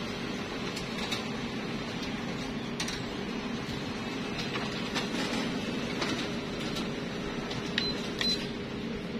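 Steady hum of a Canon imageRUNNER Advance 4235i copier, with a few rustles and clicks of paper sheets being handled, then two short high beeps from its touch panel about eight seconds in as keys are pressed in service mode.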